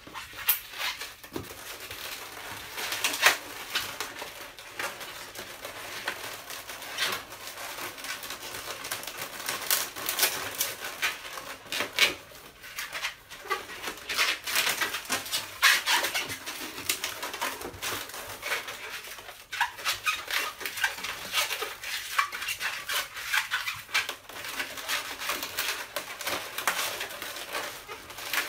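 Latex modelling balloons squeaking and rubbing against each other as they are twisted into small bubbles and wrapped together, with irregular squeaks and creaks, some sharper than others.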